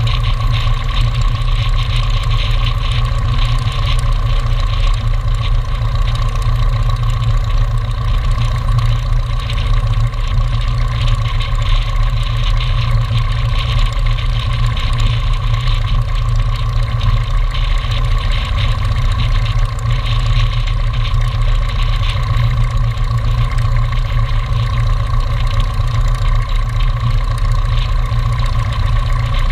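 Light aircraft's piston engine and propeller idling steadily, with no change in pitch or level.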